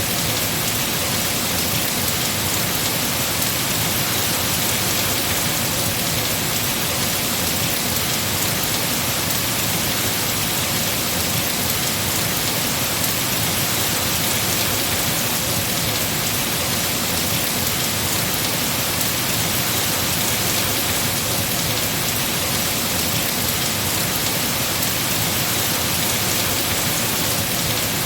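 Heavy rain falling steadily on trees and foliage: a dense, even hiss of rain with no let-up or change.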